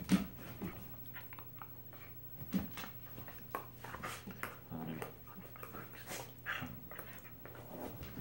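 Two Pembroke Welsh corgis play-fighting, growling in short irregular bursts with snaps and scuffles of paws and bodies on the couch.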